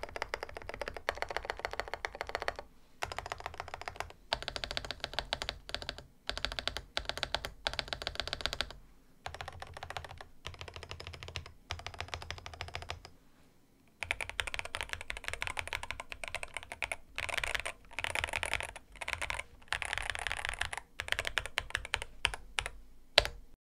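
Typing on a Groovestone GS104 mechanical keyboard with light Honey switches and PBT keycaps: quick runs of key clacks in bursts separated by short pauses, with a longer pause a little past the middle. The typing stops shortly before the end with one sharp, louder key strike.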